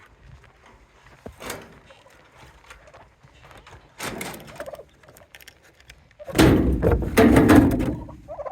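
Domestic turkeys gobbling, with short calls early on and a loud stretch of gobbling lasting about two seconds, starting about six seconds in.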